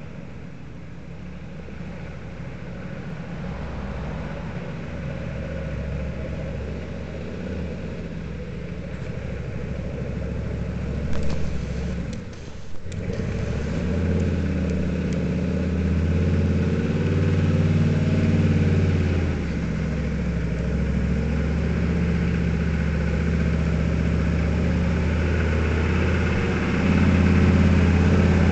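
1983 Chevrolet K5 Blazer's 6.2-litre V8 diesel engine pulling the truck slowly up a steep dirt hill climb, growing louder as it nears, its note rising and falling with the throttle.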